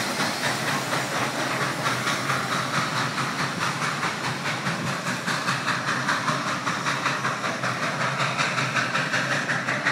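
Steam locomotive pulling away, its exhaust chuffing in a quick, even rhythm over a steady hiss of steam.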